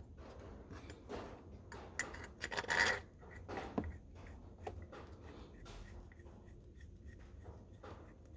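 Bolts being fitted into a new water pump on a Mercedes M111 engine: a string of short metallic scrapes and clicks, loudest about two to three seconds in.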